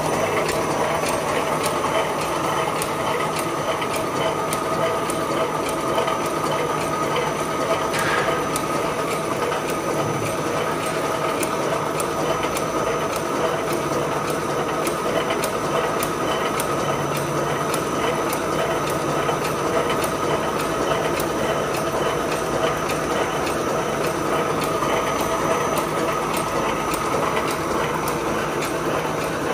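Electric wire mesh welding machine running: a steady mechanical clatter of gears and feed mechanism with a regular clicking over a constant hum, as wire is welded into mesh and wound onto the roll.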